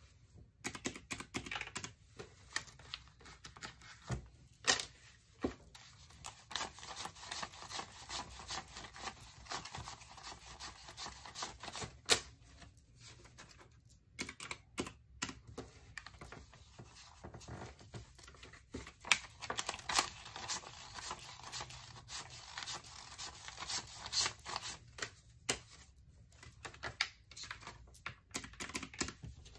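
Paper banknotes rustling and flicking as they are counted by hand and slipped into a cash holder, with irregular clicking key presses on a round-keyed desk calculator.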